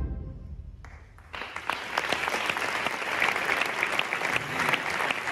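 The last chord of a brass band dies away in a reverberant church. About a second later an audience breaks into steady applause that keeps going.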